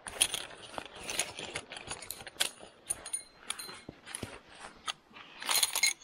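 Folding camp chair being assembled: a run of metal clicks, clinks and rattles as its frame parts are fitted together, with a louder clatter near the end.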